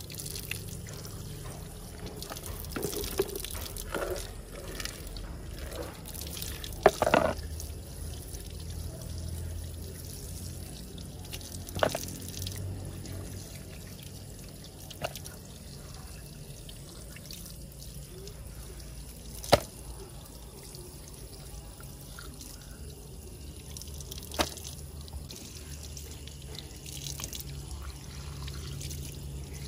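Water splashing and trickling, with a few sharp knocks at intervals, the loudest about seven seconds in.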